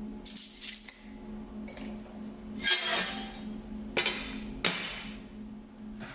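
Metal pieces clinking and scraping in several short bursts over a steady low hum.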